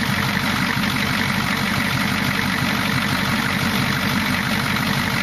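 Non-turbo 6.9-litre International V8 diesel running at hot idle, a steady, even, rapid clatter.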